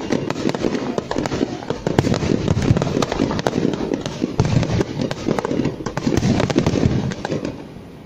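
Aerial fireworks shells bursting in a rapid barrage: a dense run of bangs and crackling pops over a low rumble, dying down near the end.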